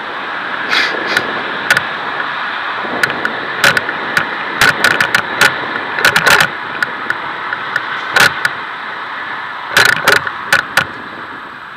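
A bicycle rolling along a path, heard through its handlebar camera: a steady rush of wind and tyre noise, broken by frequent sharp knocks and rattles that bunch up about halfway through and again near the end.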